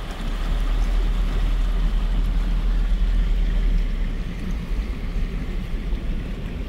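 Car driving slowly through shallow floodwater, heard from inside the cabin: a steady low rumble of the car with water washing against the tyres and underbody, a little louder from about half a second in.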